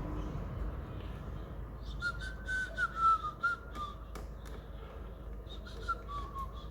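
A person whistling a few short notes: a slightly falling phrase about two seconds in and another near the end. Light clicks and taps of small parts being handled sound alongside.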